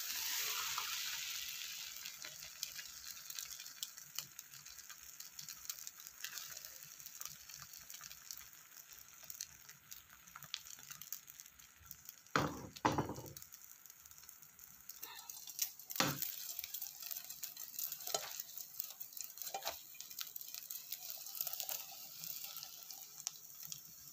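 Beaten egg sizzling in hot oil in a nonstick frying pan, a high hiss that is loudest at first and slowly dies down. A few sharp knocks come through it, the loudest about halfway, as the egg sheet is worked and folded in the pan.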